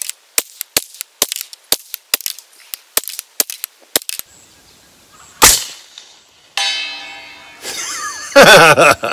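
About twenty quick clicks over four seconds, a rifle scope's turret being dialed up for 200 yards, then one suppressed shot from a CMMG Banshee carbine in .45 ACP. A little over a second after the shot comes the ring of the distant steel target being hit, dying away.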